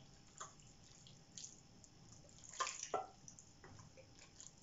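Wet squishing and soft smacks of hands rubbing chermoula marinade into a raw whole chicken. A few scattered wet sounds, the loudest cluster about two and a half to three seconds in.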